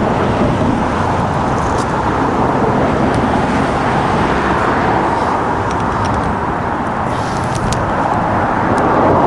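Steady rush of road traffic, with a few faint clicks scattered through it.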